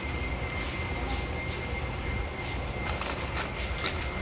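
Steady low rumble of a large store's background noise, with a faint steady high-pitched tone and a few light clicks and rattles about three to four seconds in.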